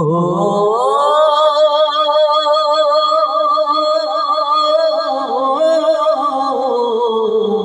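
Male singer of a Bengali gojol holding one long, drawn-out vowel with a wide vibrato. The pitch glides up over the first second and slides down near the end.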